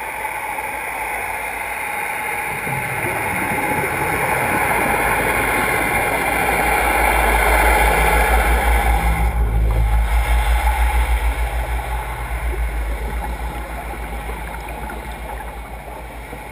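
Dive boat's engine and propeller heard underwater as the boat passes overhead: a low pulsing throb that swells to a peak about eight to ten seconds in, then fades away.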